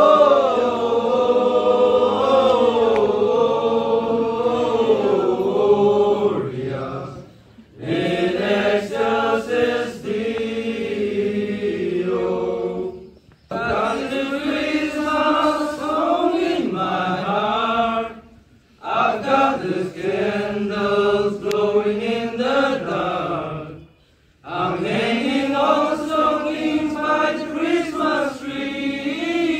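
Group of young men singing a Christmas song together, unaccompanied, in phrases of about five seconds with short breaks for breath between them.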